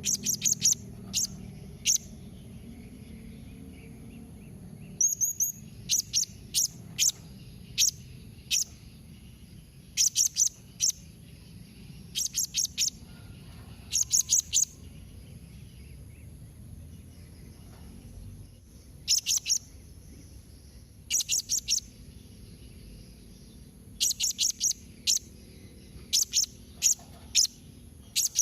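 Blue-crowned hanging parrot (serindit) giving short, sharp, high-pitched calls in quick clusters of two to four, repeated every second or two, over a faint steady high whine.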